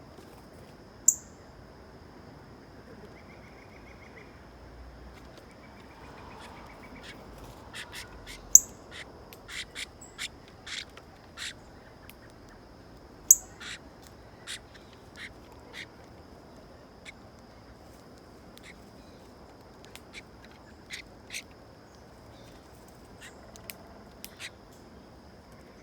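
Backyard birds giving short, sharp, high-pitched chirps and chips at irregular intervals, a few much louder than the rest, over a faint steady high tone.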